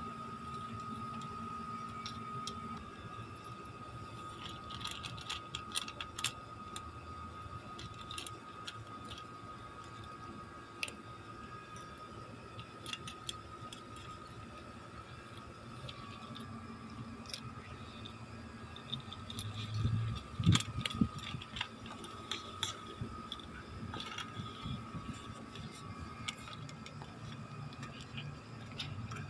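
A cat eating dry kibble from a stainless steel bowl: irregular crunching and sharp clicks and clinks as the kibble and the cat knock against the metal. A faint steady hum runs underneath, and a few louder knocks come about two-thirds of the way through.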